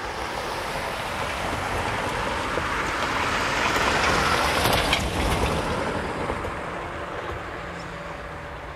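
A van driving past on the road, its engine and tyre noise swelling to loudest about four to five seconds in and then fading as it moves away.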